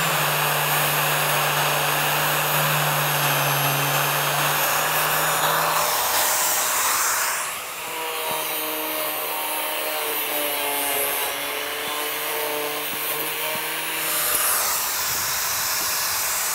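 Angle grinder with a thin cutoff disc running continuously as it cuts through vinyl siding, a steady motor whine. About seven and a half seconds in the sound dips briefly and its pitch shifts, then it carries on.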